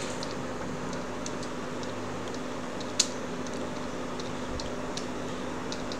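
Computer keyboard typing: sparse, irregular key clicks, with one louder keystroke about three seconds in, over a steady low hum.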